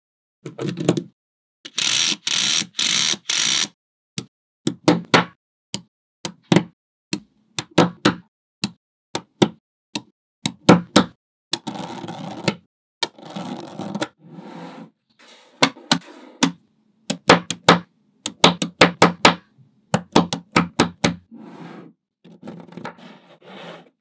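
Small neodymium magnet balls clicking and snapping together one by one as a model is built from them, with quick runs of rattling clicks. A longer stretch of dense clattering comes about two seconds in.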